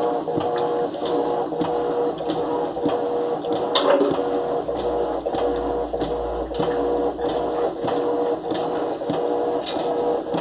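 Electrolux LTE12 top-loading washing machine agitating the wash: the motor hums in short runs as it swings back and forth, with regular knocking strokes about twice a second.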